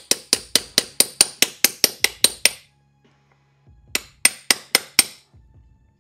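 Hammer tapping a belt tensioner pulley bearing into place with quick, even, ringing metallic clinks, about four a second. The taps stop about two and a half seconds in, then about five more come near the middle of the second half.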